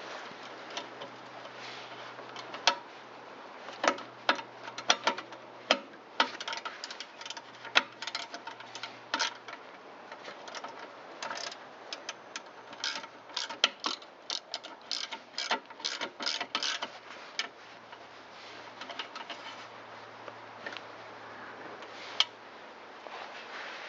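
Hand ratchet wrench clicking in short irregular runs as shouldered fasteners are driven in, with a few sharper metal clicks between. The clicking dies away about three-quarters of the way through.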